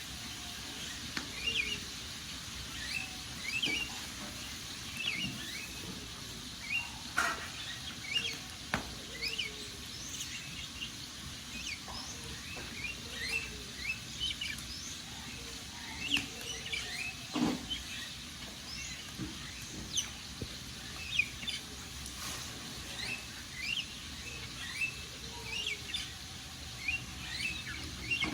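Small birds chirping in quick, short calls again and again over a steady low hiss, with a few sharp pops from a crackling wood fire.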